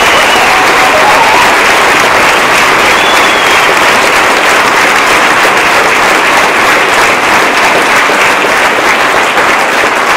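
A large audience applauding: many people clapping together in a steady, sustained ovation.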